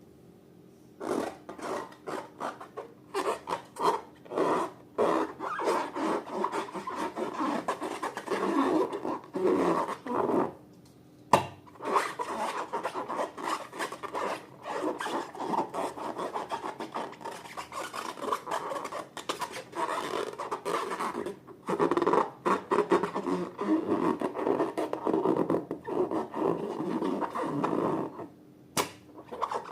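Slime being stirred and worked by hand: a dense run of small clicks and rubbing, with brief pauses about ten seconds in and near the end, and a couple of sharp clicks.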